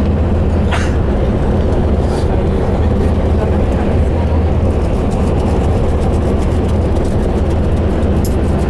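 Steady low drone and road noise of a moving road vehicle, heard from inside the cabin. A brief sharp sound cuts through about a second in.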